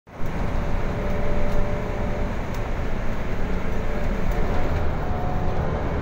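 Inside a Mercedes-Benz OC500LE city bus on the move: a steady mix of engine, road noise and air-conditioning, with a faint steady whine running through it.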